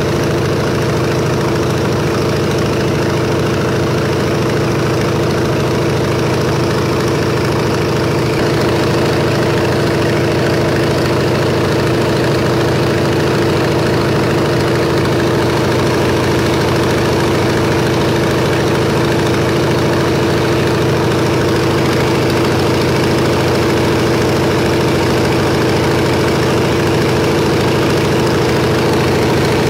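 Propeller aircraft engine droning steadily in flight, heard from inside the cabin, with a constant low hum and a strong steady tone.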